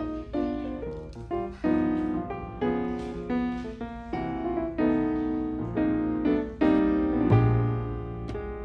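Background piano music, with notes and chords struck about once a second.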